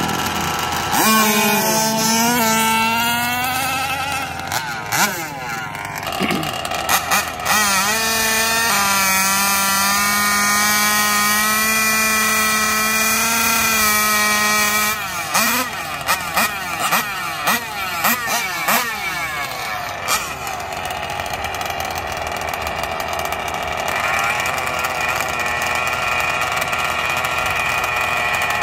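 Small two-stroke gas engines of 1/5-scale RC drag cars running and revving. One note is held steady at high revs through the middle, then there are a series of quick blips up and down, and the engines settle into a steady run near the end.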